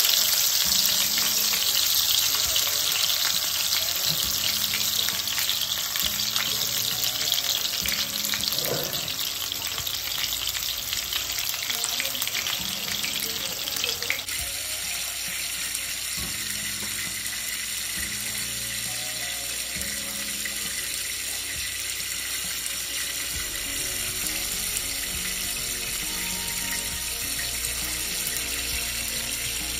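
Turmeric-marinated red snapper pieces frying in hot oil in a nonstick pan, a steady sizzle that gets a little quieter about halfway through.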